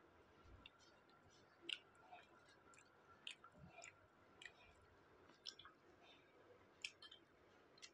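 Faint, scattered mouth clicks and smacks of someone chewing food eaten by hand, close to a clip-on microphone, with a sharper click about two seconds in and another near seven seconds.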